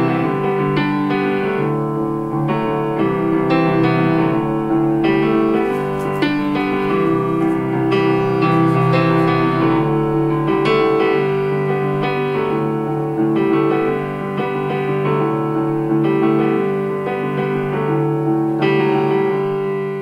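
Piano music played back through a pair of small DIY ceramic-canister speakers, with sustained chords and notes that change every second or so.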